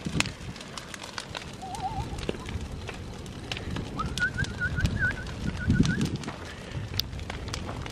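Large brush-pile fire of tree limbs burning, crackling with scattered sharp pops over a low rumble that swells near the end. A short warbling whistle sounds about two seconds in, and a run of higher warbling notes follows from about four to six seconds in.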